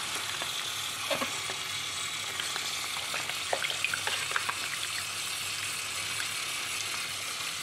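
Tap water running steadily into a sink while a clear plastic waste-ink absorber case is rinsed under it, with a few small plastic clicks and knocks about halfway through as the case is handled.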